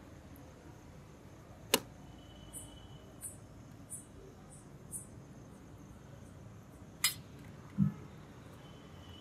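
Sharp clinks of a metal serving utensil against a plate, two of them about five seconds apart with faint ticks between, and a soft thud about eight seconds in as a piece of grilled chicken kebab is set down on the plate.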